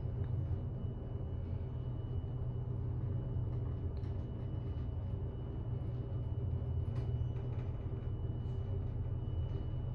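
Westinghouse elevator car giving off a steady low rumble from inside the closed cab, with a faint steady high-pitched whine over it.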